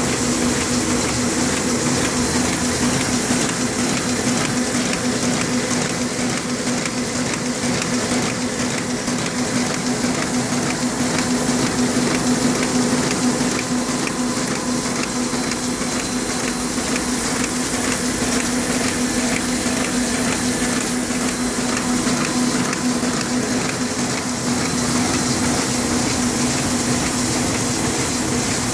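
Heidelberg PM 46-2 offset printing press running steadily, with a constant hum, a fast fine clatter of the sheet-feeding mechanism, and a continuous air hiss.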